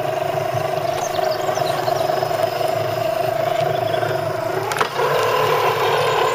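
Scale RC crawler truck's drivetrain whining steadily as it crawls along a dirt rut. Close to five seconds in there is a click, and the whine steps up higher and louder as the throttle opens.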